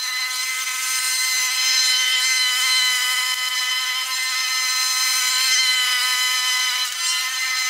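Power Smart 209cc gas lawn mower running steadily while mowing, heard as a continuous high whine.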